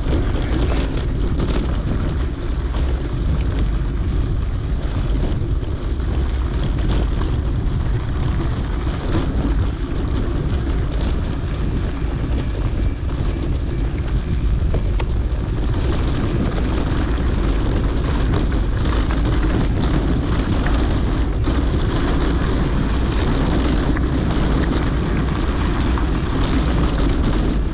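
Mountain bike rolling along a dirt trail, heard as a steady low rumble of wind on a GoPro's microphone with occasional small clicks and rattles.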